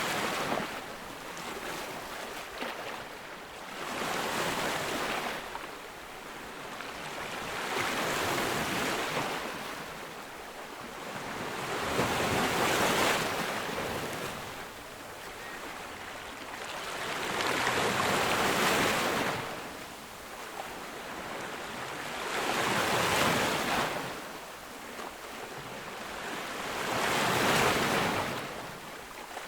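Ocean waves breaking on a beach, a surge of surf about every four to five seconds, each swelling up and washing back down into a steady hiss between breakers.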